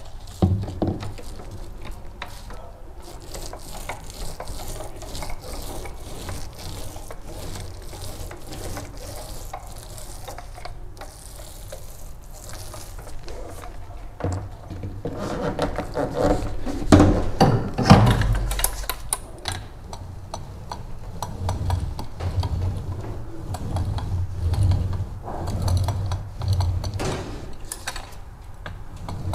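Paint roller worked back and forth over thick wet primer on a fiberglass cockpit floor, in repeated strokes about once a second, with clicks and knocks from roller frames and a plastic cup being handled. A louder cluster of knocks and rattles comes about halfway through.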